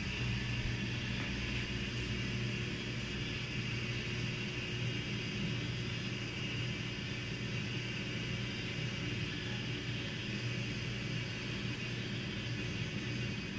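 Steady low hum with an even hiss, unchanging throughout: a running appliance or motor.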